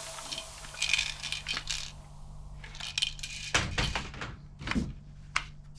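Toy plastic guns being handled, giving irregular small hard clicks and clinks, with a cluster in the middle and one sharp click near the end.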